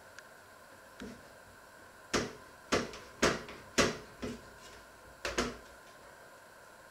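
Kitchen things being handled at the counter: a run of about seven sharp knocks and clatters, with a faint steady hum underneath.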